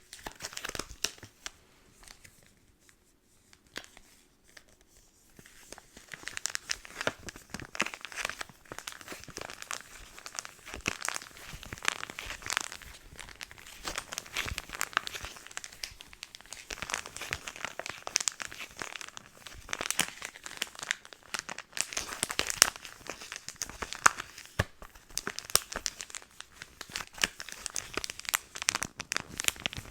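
Close-up crinkling and crackling of product packaging being handled, with a few scattered crackles at first and a dense run of them from about six seconds in.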